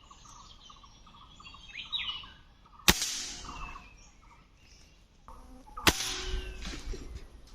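Small birds chirping and calling, broken twice by a sharp shot about three seconds apart; each shot is the loudest sound and leaves a brief ringing tail.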